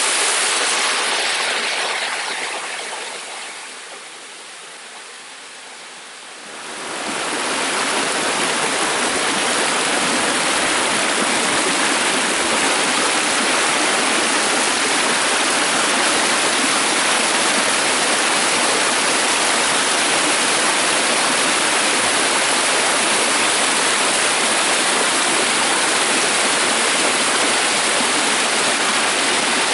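Waterfall on a small brook, water rushing in a steady, dense hiss. About two seconds in it falls away for a few seconds, then comes back full about seven seconds in and holds steady.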